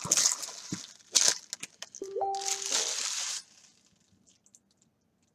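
Foil trading-card pack wrappers and cards crinkling and rustling as they are handled, stopping about three and a half seconds in. A short electronic tone sounds briefly about two seconds in.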